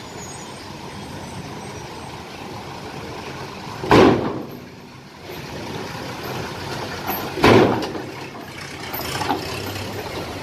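Mitsubishi Fuso diesel cargo truck driving slowly up a ferry's steel loading ramp, its engine running steadily. Two loud bangs come about three and a half seconds apart.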